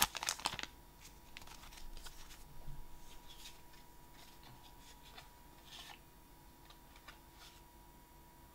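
Faint rustling and crinkling of a Pokémon card booster pack's foil wrapper and the cards being drawn out, louder in the first half second, then soft scattered rustles and small clicks. A faint steady hum runs underneath.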